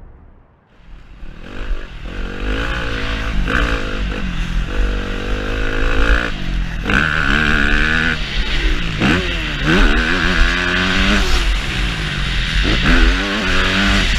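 Yamaha YZF four-stroke motocross bike engine revving hard up through the gears. Its pitch climbs and falls back again and again as the rider accelerates and shifts, with a steady low rumble underneath. The sound builds up from a brief lull about a second in.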